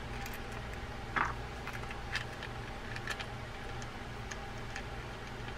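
A few light, scattered metal clicks and ticks as a Shimano Calcutta baitcasting reel's star drag is fitted by hand onto its handle shaft.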